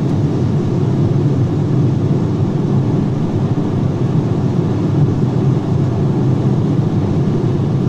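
Steady low rumble of road, tyre and wind noise inside the cabin of a 2013 Citroën C4 sedan cruising at highway speed of about 108 km/h.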